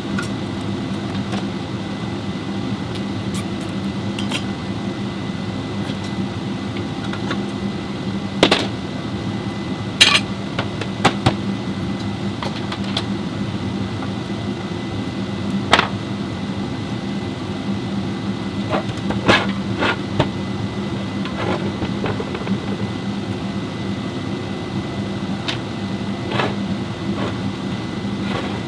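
Steady low mechanical hum with about a dozen sharp metallic clinks and knocks scattered through it, the loudest around a third of the way in.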